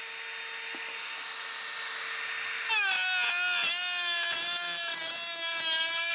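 Milwaukee M18 compact router running at full speed with a steady high whine. About two and a half seconds in, a board is fed into the bit: the pitch drops and the sound gets louder and rougher as the router cuts under load, taking off a lot of wood.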